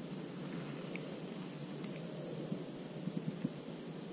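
Steady high-pitched insect buzz over a low steady rumble, with a few small clicks about three seconds in.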